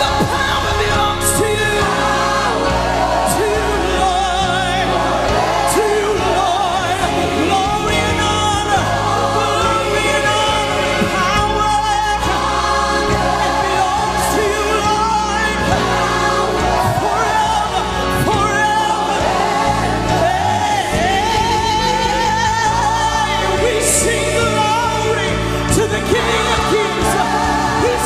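Live gospel worship song: several lead singers and a choir singing together over a band with keyboard.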